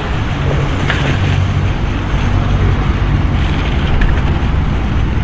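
Street traffic noise with steady low rumble, and wind buffeting the microphone.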